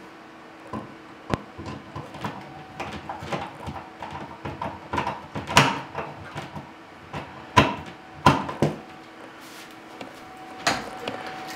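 A screwdriver and small hardware working at a metal wall switch box: irregular clicks, taps and scrapes, with a few sharper knocks in the middle.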